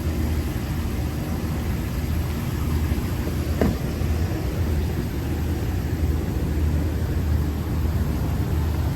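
Steady drone of a Daikin rooftop HVAC package unit with only its fans running and no compressors: the unit is not cooling. A single short knock a little over three and a half seconds in.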